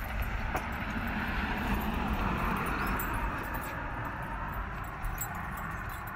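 Steady road and wind noise from a moving car: a low rumble with an even hiss, swelling slightly and easing again.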